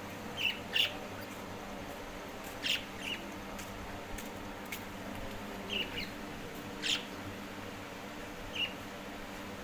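Pet parrot giving short, sharp chirps, about eight of them in ones and twos, spread over several seconds.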